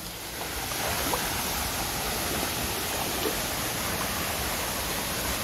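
Spring-fed river water flowing steadily, a little louder from about half a second in.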